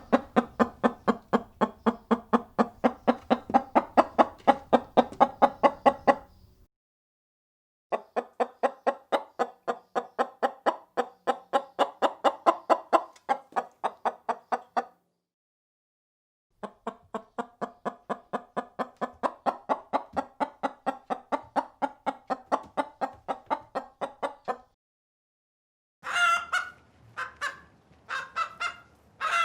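Chicken clucking in three long runs of rapid, even clucks, about six a second, with short silences between the runs. Near the end it changes to a few separate, higher-pitched calls.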